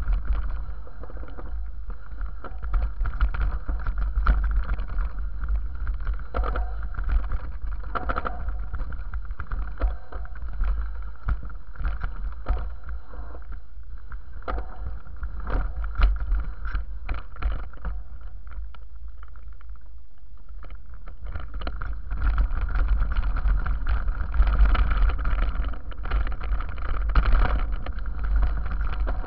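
Wind buffeting the microphone of a mountain bike's action camera on a dirt-trail descent, a steady low rumble with frequent rattles and knocks from the bike jolting over bumps and stones. It eases for a few seconds around the middle, then picks up again.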